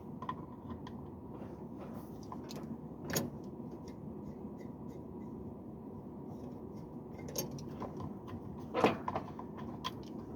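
Scattered light metallic clicks and knocks from handling tools and hose fittings while hooking up a refrigeration gauge set, over a steady low background rumble. The loudest knocks come about three seconds in and again near nine seconds.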